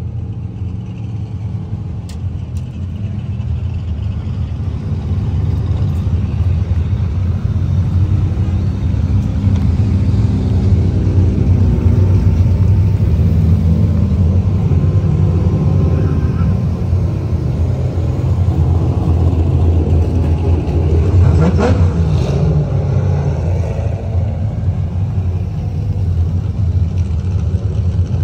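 Performance car engines running in a drift-course staging line, a steady low rumble, with one car revving up in a rising sweep about two-thirds of the way through.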